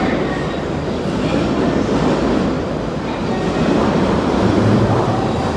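Electric commuter train running into an underground station platform: a steady rumble of wheels on the track that grows louder about three and a half seconds in as the train comes alongside.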